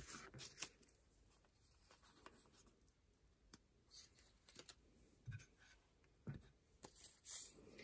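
Faint handling noise: scattered light taps and rustles of stiff glitter paper strips being picked up and laid on a cutting mat, then a couple of soft knocks as a small wooden crate is picked up and handled in the second half.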